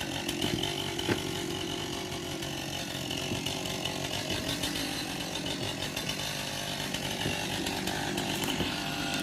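Chainsaw running steadily at a distance during tree felling.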